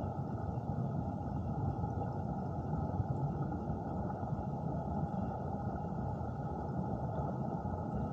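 Steady, muffled rush of stream water recorded underwater, deep and even, with no separate splashes or knocks.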